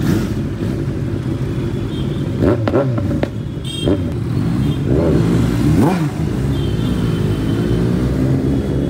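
Motorcycle engines in street traffic, revving up and down twice, then running at a steadier pitch near the end.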